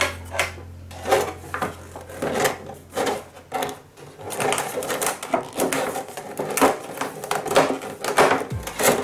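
Clear plastic blister packaging being handled and pulled apart: irregular crinkles, clicks and scrapes of thin plastic.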